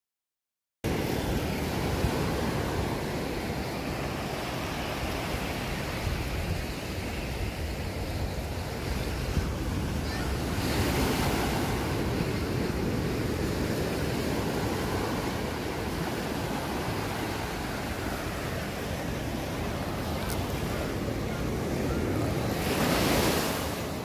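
Small waves breaking and washing up on a sandy beach, with wind buffeting the microphone. The sound cuts in just under a second in, and the surf swells louder twice, about ten seconds in and near the end.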